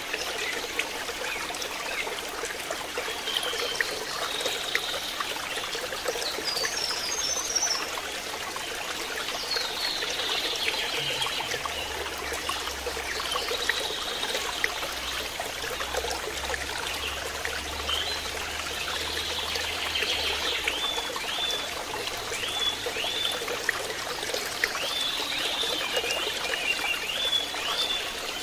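Steady trickle of running water, with light splashing in a plastic tub of water and short high chirps now and then.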